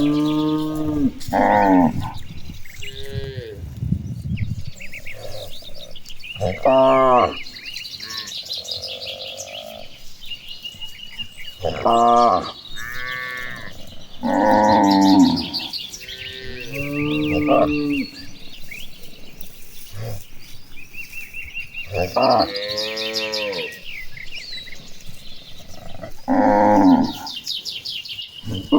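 A herd of cattle mooing again and again, a call every few seconds, some short and some drawn out for a second or two. Birds chirp steadily behind them.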